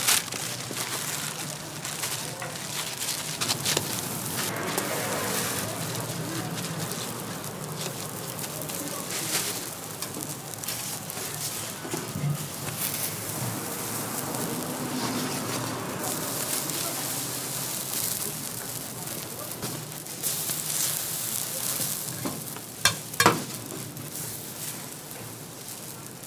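Hotteok (Korean sweet pancakes) sizzling as they cook on a flat griddle without oil, pressed flat under stainless steel presses. Scattered crackles run through the sizzle, with two sharp clicks near the end.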